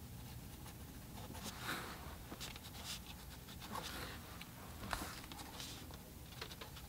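Pencil sketching on watercolor paper: faint, irregular scratching strokes.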